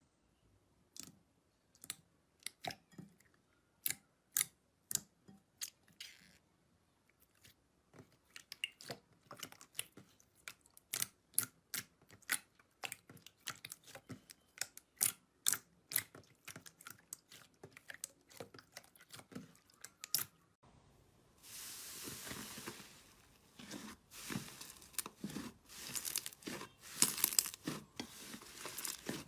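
Slime being squeezed and stretched close to the microphone, giving sharp, scattered crackles and pops. About two-thirds of the way through it changes to a denser, continuous crinkling and crunching.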